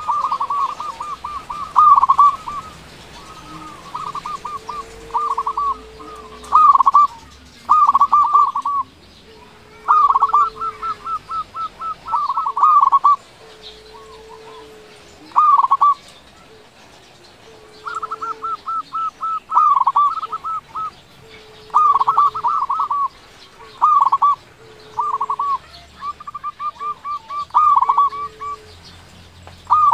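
Zebra dove (perkutut) cooing in loud phrases of rapid trilled notes, repeated about every two seconds, with fainter low drawn-out coos between them.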